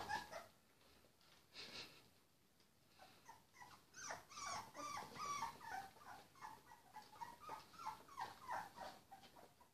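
Three-week-old puppies whimpering: a run of short, faint whines, each falling in pitch, several a second, starting about three seconds in. A short sharp noise comes right at the start.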